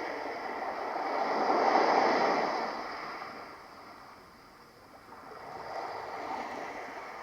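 DolPillow white noise machine playing its fifth ocean-wave sound: the surf swells to a peak about two seconds in, dies down, and starts to rise again near the end.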